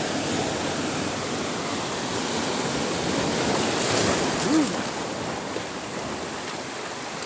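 Sea surf washing and breaking against a rocky shoreline, swelling about four seconds in. A brief voice sound about halfway through.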